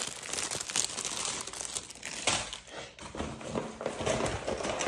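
Plastic bread-bag packaging crinkling and rustling as it is handled, with irregular small crackles.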